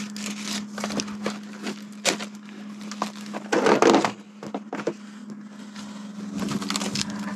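Plastic gasket-kit packet crinkling and rustling as it is opened and handled, with scattered small clicks and knocks, and a louder bout of rustling about three and a half seconds in. A steady low hum runs underneath.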